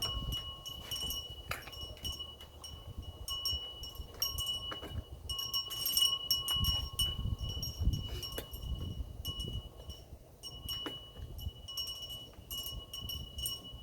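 Hand tools at work on a portable generator's metal housing: a screwdriver and loose screws giving scattered clicks, clinks and scrapes, with a steady faint high whine underneath.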